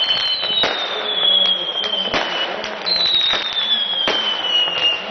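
Fireworks going off in a rapid string of pops and cracks, with whistling fireworks giving high whistles that fall slowly in pitch, each lasting about two seconds, twice over.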